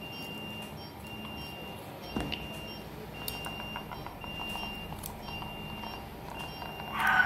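A surgical patient monitor beeping, a short high tone repeating about once a second. Near the end comes a louder burst with a whistle in it as the surgical suction draws fluid out of the abdomen.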